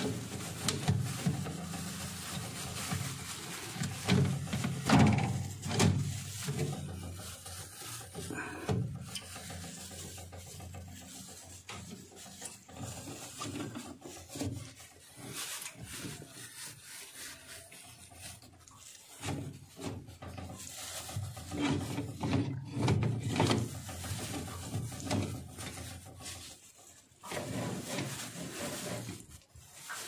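A wet cotton rag rubbing and wiping over the plastic shelves and crisper cover inside a refrigerator, in uneven strokes with short pauses.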